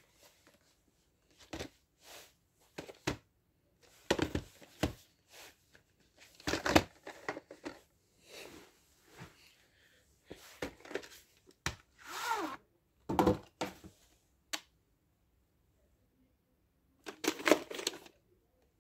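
Handling of VHS tapes and their cases: a run of scattered clicks, knocks and rustles, then a pause of a couple of seconds and a last cluster of rustling and clicks near the end.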